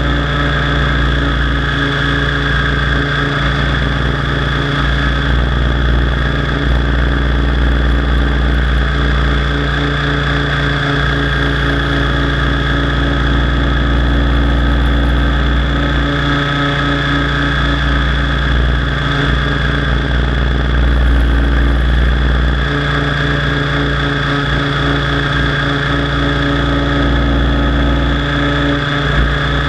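Align T-Rex 700 DFC radio-controlled helicopter in flight: a steady, loud machine drone from its rotor and drivetrain, with a high steady whine over it and no big change in pitch.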